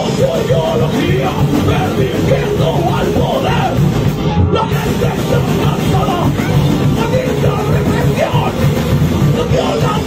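Live rock band playing a punk/metal-style song: electric guitar, bass guitar and drums, with the vocalist shouting the lyrics into a microphone.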